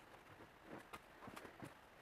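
A few faint clicks and knocks from a steel bar clamp as its screw handle is turned by hand and tightened onto a glued wooden block.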